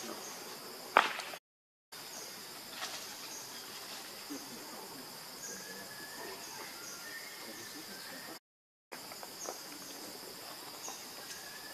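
Steady chorus of insects buzzing in a high, even band, with a sharp click about a second in and a few faint short chirps. The sound cuts out completely twice for about half a second.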